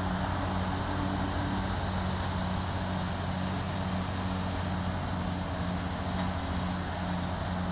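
Caterpillar crawler bulldozer's diesel engine running steadily as the machine pushes a blade of dirt. A low note in the drone pulses a little more than once a second.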